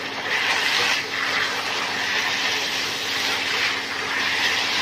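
Minced pork stir-fry with curry paste and holy basil sizzling in a nonstick wok as it is stirred with a spatula: a loud, steady hiss that swells and eases with the stirring.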